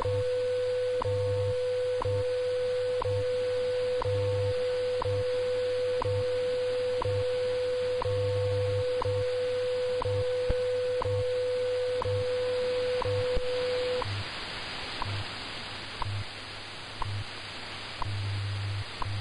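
WWV shortwave time-signal broadcast on 10 MHz received on a software-defined radio: a steady 500 Hz tone with a tick every second over a low pulsing hum of the time code. About 14 s in the tone stops, leaving the once-a-second ticks over radio static, as the station leads up to its minute voice announcement.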